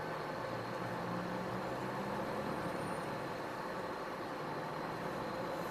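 Iveco Stralis truck running steadily on the move: an even engine drone with road noise and a faint thin high whine, without any change in pitch or level.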